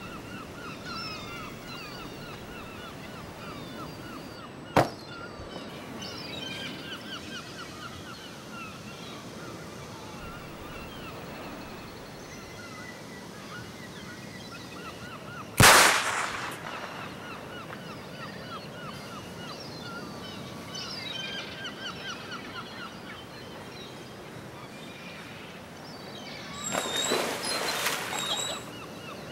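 Birds chirping throughout, with a sharp crack about five seconds in and a much louder bang with a short tail about sixteen seconds in. Near the end comes about two seconds of water splashing.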